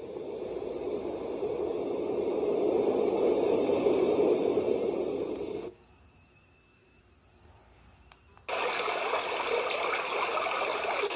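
Tiny white noise machine playing its built-in sounds through its small speaker, switching between tracks. First a low rushing noise that swells and eases like a wave. Then, about six seconds in, a few seconds of high cricket chirping at about three pulses a second, giving way to a steady, brighter water-like hiss.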